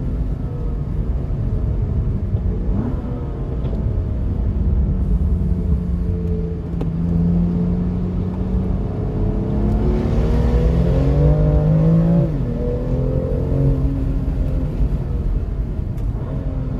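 Jaguar F-Type's supercharged V8 engine under way, its note shifting as the car drives. The engine note climbs for a few seconds and then drops sharply about twelve seconds in, as at a gear change or lift-off.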